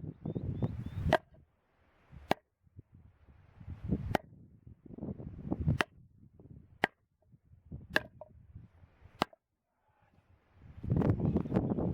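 Wood being chopped or split with a blade: seven sharp strikes about a second apart, each coming after a short scuff. It is followed near the end by loud rustling.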